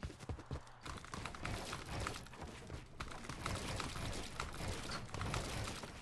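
Rapid, dense clatter of Razer Huntsman keyboard keys being pressed in fast succession, many keystrokes a second, as in quick gaming input.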